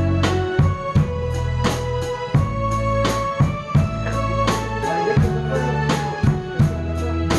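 Instrumental intro of a Korean trot song: a drum kit keeps a steady beat over a backing track of bass and organ-like keyboard, with no vocals yet.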